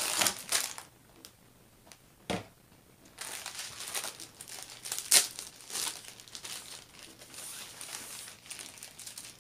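Clear plastic kit packaging crinkling and crackling as it is handled and pulled open, in bursts with a few sharp crackles, quieter for a couple of seconds about a second in.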